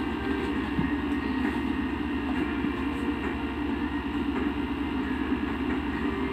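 A steady, even mechanical hum or drone, with a few faint clicks scattered through it.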